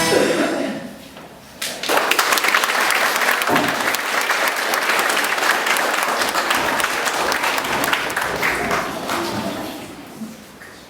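The last notes of a song fade out in the first second, then an audience applauds for about eight seconds, the clapping dying away near the end.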